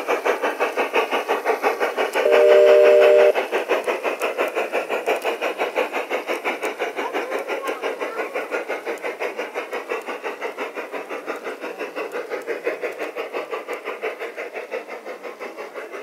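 Battery-powered, radio-controlled garden-scale model steam locomotive's onboard sound playing quick, even steam chuffing, about five chuffs a second. About two seconds in, a one-second chime-whistle blast sounds over it.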